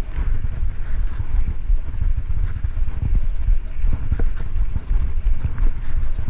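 Wind buffeting the microphone of a cyclist's camera while riding, a loud, fluttering low rumble.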